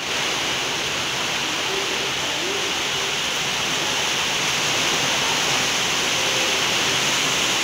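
Heavy cyclone rain pouring down steadily, a dense even hiss with no breaks.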